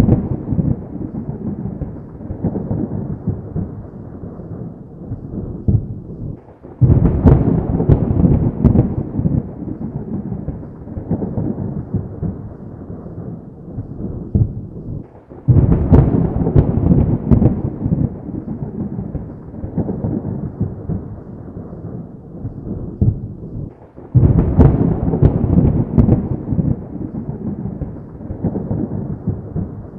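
Thunderstorm: three sudden loud thunderclaps, about eight to nine seconds apart, each rolling off into a long low rumble.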